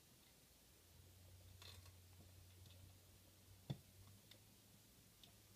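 Near silence with a few faint small clicks, one sharper about two-thirds of the way through, from a 1220 coin-cell battery being handled and fitted into a circuit board's hinged battery holder.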